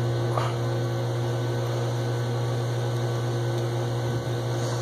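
A steady low hum, with faint scraping from a small hand tubing cutter being turned around a quarter-inch copper tube clamped in a vise.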